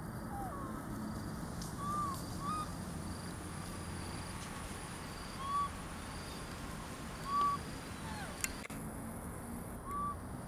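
Young monkeys giving short, clear arched coo calls, one every couple of seconds, the loudest about two thirds of the way through, over a faint steady hum of insects.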